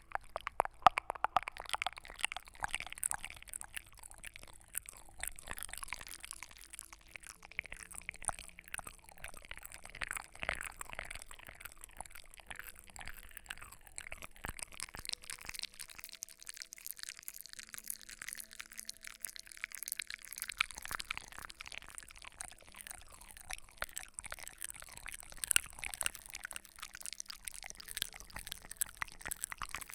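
Close-miked ASMR trigger sounds: a dense, irregular stream of soft crackling and small clicks, thinning out about halfway through and building again near the end.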